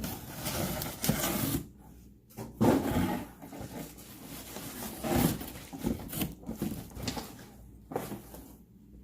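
Packaging being handled and rustled while a stainless steel skillet is unpacked from its box, with a few knocks and short quiet pauses in between.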